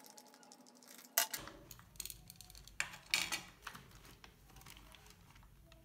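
A few scattered clicks and knocks of hard plastic: an RC buggy's body parts being handled and taken off the chassis, and a small screwdriver put down on a wooden table.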